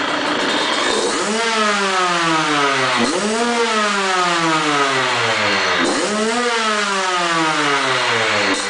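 Derbi Senda two-stroke engine, newly built with an MHR80 cylinder kit, PWK24 carburettor and Yasuni Cross exhaust, being revved in neutral. Three times about a second in, three seconds in and six seconds in, the revs shoot up sharply and then wind down slowly, with another blip starting at the end.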